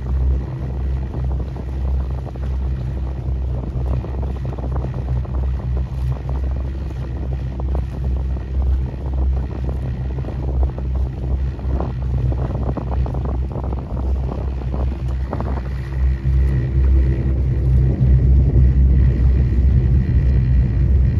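Motorboat engine running steadily as a low hum, with wind buffeting the microphone. It gets a little louder about three-quarters of the way through.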